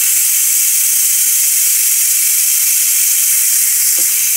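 Steam hissing steadily out of a Ninja Foodi pressure cooker's pressure-release valve during a quick release, with pressure being vented after cooking.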